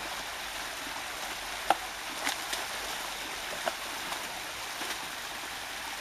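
Small waterfall pouring steadily into a shallow pool, with a few short sharp splashes and knocks as a retriever thrashes about in it with a stick; the loudest comes just under two seconds in.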